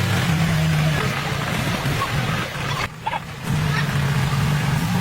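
An engine running steadily, briefly dropping away about three seconds in before it comes back.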